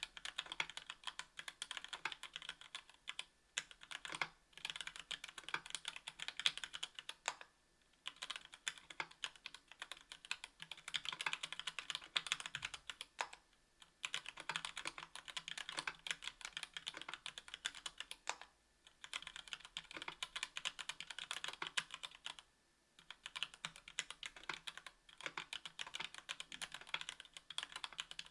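Continuous typing on a KBDfans Tofu 60% aluminium mechanical keyboard fitted with stock Gateron Black Ink linear switches (60 g), an aluminium plate and GMK keycaps: a rapid patter of keystrokes, broken by short pauses every few seconds.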